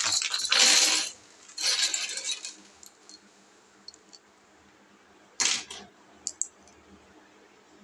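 A clear plastic bag of small circuit-board modules crinkling and rustling as it is handled. This is followed by a few light clicks and a short clatter about five and a half seconds in as the boards knock against each other.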